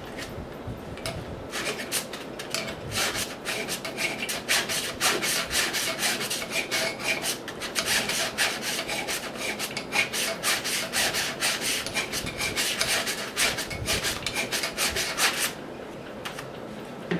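Small hand file rasping back and forth across a stepper motor's shaft clamped in a vise, cutting a flat for a set screw to bite on, in rapid repeated strokes. The filing stops near the end.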